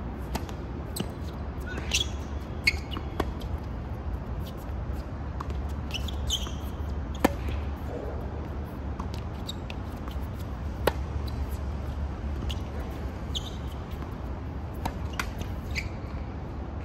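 Tennis serve and rally on an outdoor hard court: a series of sharp pops from racket strikes and ball bounces a second or few apart, the near player's hits loudest, the far player's fainter. A few short high squeaks come in between, over a steady low hum.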